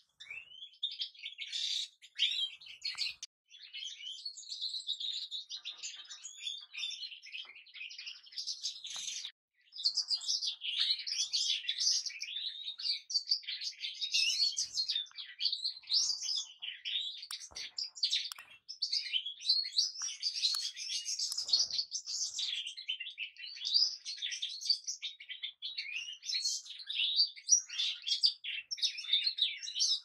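European goldfinches singing: a high, rapid, continuous twittering song, broken briefly about nine seconds in.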